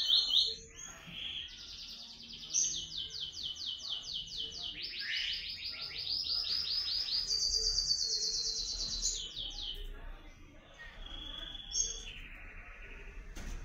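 Male azulão (ultramarine grosbeak) singing: a long song of rapid trilled phrases, each a quick run of repeated high notes, stepping up and down in pitch for about nine seconds, then a few thinner, softer notes.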